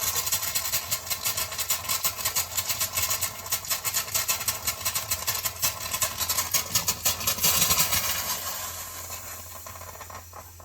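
Sink faucet sputtering and spitting, air and water coming out together in a rapid irregular rattle with hiss as air is purged from the newly filled plumbing and water heater. It eases off and quietens near the end.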